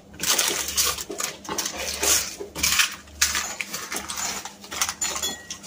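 Baking paper crinkling and rustling in repeated bursts as it is peeled off the sides of a baked loaf.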